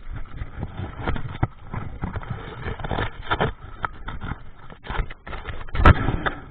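Irregular crunches, scrapes and knocks of footsteps on wet gravel and stones and of hands pushing through dead branches of a fallen tree, with one sharp, loud knock near the end.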